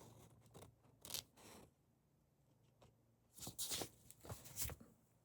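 Comic books being handled and shuffled: a short rustle about a second in, then a few quick rustles and scrapes in the second half.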